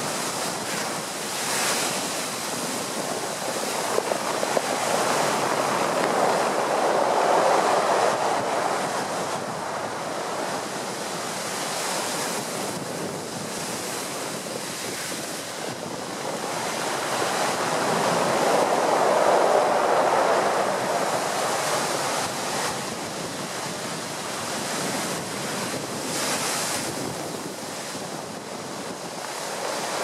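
Storm surf crashing at high tide against a sea wall and timber groynes and washing over shingle, with strong wind buffeting the microphone. The surge swells louder twice, about a quarter of the way in and again just past the middle.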